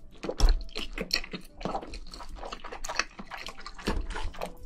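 Close-miked wet chewing of a mouthful of canned luncheon meat: a quick, irregular run of moist clicks, smacks and squishes from the mouth.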